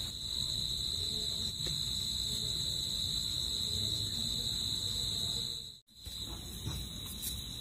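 A steady high-pitched insect trill with a low rumble beneath it; both break off for a moment about six seconds in, then the trill goes on slightly fainter.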